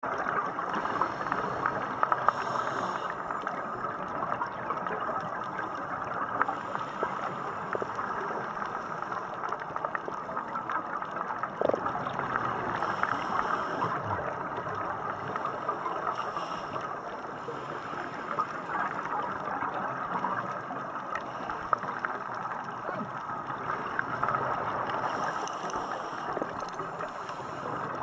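Underwater ambience picked up through a camera housing on a reef: a steady muffled water hiss with scattered faint clicks and crackles, and short hissing bursts every few seconds from scuba divers' exhaled regulator bubbles.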